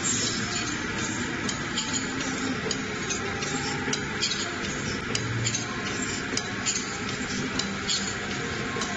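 Vertical form-fill-seal granule packing machine with a volumetric cup filler (Autompack ATM-240C) running: a steady mechanical hiss with short sharp clicks about twice a second.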